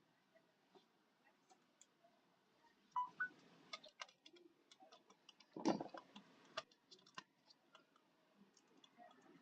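Faint, irregular small clicks and taps, with a few louder knocks about three seconds in and the loudest just before six seconds in.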